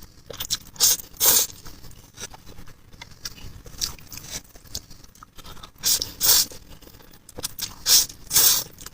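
Close-miked eating sounds: short bursts of chewing noise, mostly in pairs about half a second apart, with small clicks and scrapes between them.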